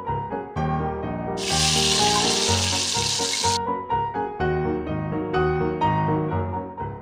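Background piano music throughout. About a second and a half in, a steady hissing sizzle lasts roughly two seconds and cuts off sharply: hot oil in a miniature clay pan frying as spice seeds are dropped in.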